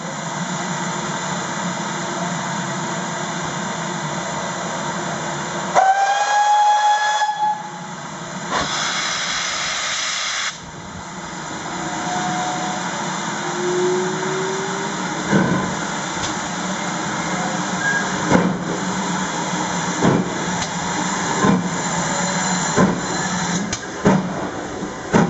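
GWR Modified Hall two-cylinder steam locomotive 'Foremarke Hall' hissing steam while it stands, then giving one short whistle about six seconds in. A loud blast of steam from its open cylinder drain cocks follows as it starts the train. It then pulls away slowly past the listener, with heavy exhaust beats about every second and a half.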